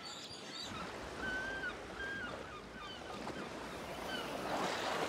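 Shore ambience on a tidal flat: a steady wash of shallow water with a series of short, thin whistled bird calls from about a second in. Near the end it swells into a louder rush of splashing.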